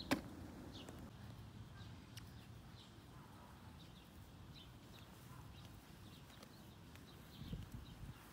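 Faint outdoor ambience: small birds chirping briefly and repeatedly, over a low rumble of light wind on the microphone. A single sharp click sounds right at the start.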